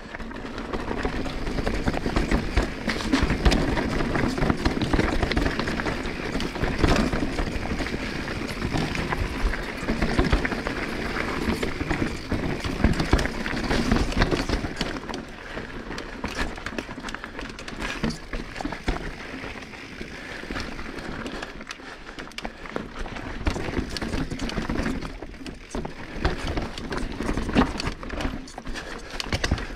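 Full-suspension 29er mountain bike descending a rocky trail: tyres rolling and knocking over rock amid a steady rush of noise, with frequent clatter and rattle from the bike and pedals scraping on rock. It is louder over the first half and eases off later.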